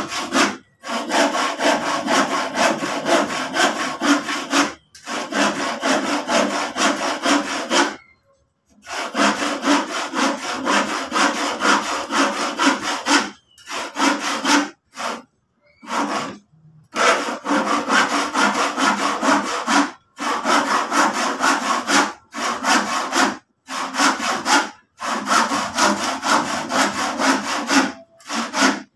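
Hand saw cutting through a piece of used wooden lumber, in rapid back-and-forth strokes. The sawing comes in runs of a few seconds, with short pauses between them.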